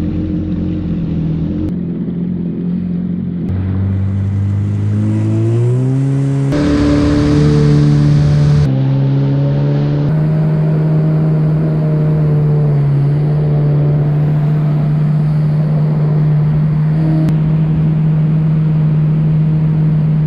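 Yamaha WaveRunner personal watercraft engine running under way. Its pitch rises as it speeds up about four to six seconds in, then it runs at a steady cruising pitch, with a few abrupt jumps in the sound.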